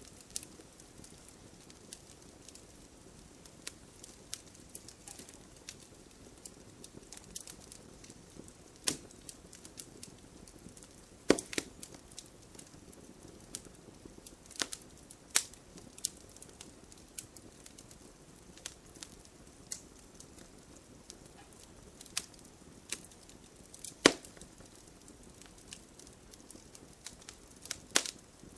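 Wood fire crackling: a low steady hiss broken by irregular sharp pops and snaps, several of them louder cracks.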